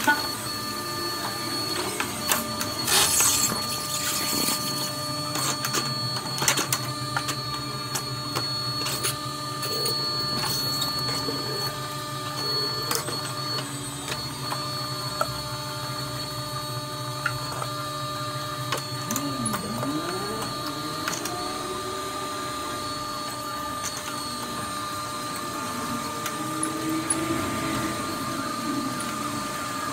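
A steady mechanical running sound from a motorized shop tool during a tire puncture repair, with scattered clicks and knocks and a short hiss about three seconds in; its low pitch dips and climbs back once about two-thirds of the way through.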